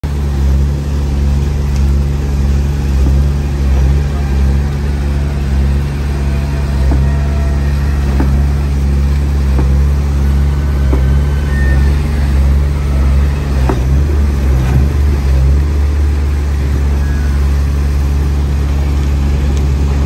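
Heavy diesel construction machinery running steadily at a deep, even pitch, with a few light knocks and clanks over it.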